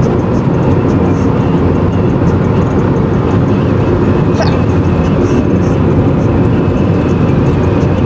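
Steady, loud road rumble inside a moving car's cabin: tyre and engine noise.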